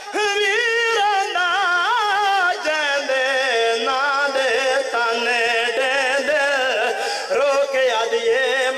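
A man's voice singing a long melismatic lament phrase through a microphone, one voice with wide, wavering vibrato: a zakir's sung passage in a Shia majlis recitation.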